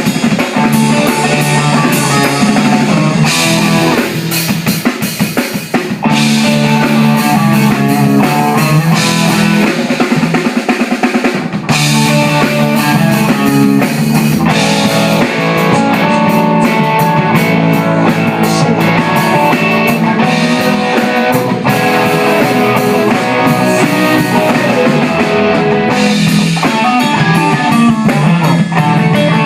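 A band playing live: a drum kit with crash and ride cymbals washing over steady bass-drum and snare hits, with guitar and bass. The drummer's newly bought Wuhan Zenero crash cymbals are part of the kit being played.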